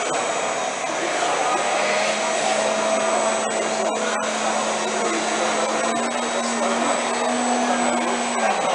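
Electric motors and propellers in the swivelling gondolas of a model blimp whirring steadily. Their hum rises a little in pitch about six seconds in and drops back near the end as the throttle changes.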